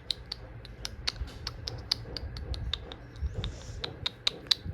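Light handling noises as a reborn doll is fed a cupcake: quick, irregular, light clicks and taps, several a second, over a low rumble of hands moving things about.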